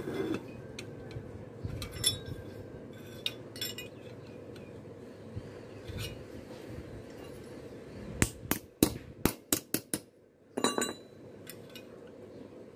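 Metal clinking and knocking as a curved metal part gripped in locking pliers is worked against a steel block: scattered light clinks, then a quick run of about seven sharp metallic knocks near the end and a brief rattle just after.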